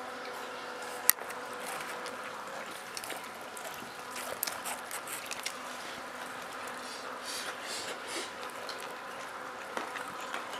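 Low background noise of a group eating with their hands on the floor: faint rustles and small clicks over a steady hum, with one sharp click about a second in.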